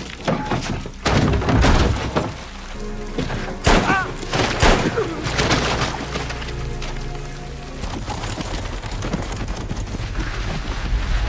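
Film soundtrack with a string of sharp bangs and crashes over dark, sustained music. The crashes come mostly in the first five seconds, and the music carries on steadily after them.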